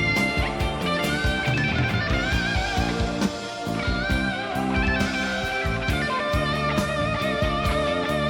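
Live blues-rock band playing an instrumental passage: an electric guitar solo of long, sustained notes with vibrato over drums, bass and keyboards.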